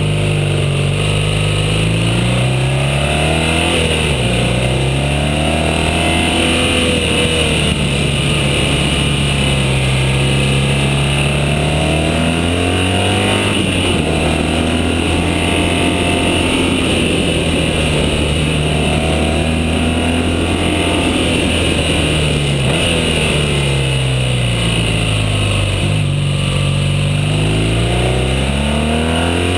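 BMW R1200GS boxer-twin engine under way, its pitch rising as the throttle opens and falling as it closes, over and over through the bends, over a steady hiss.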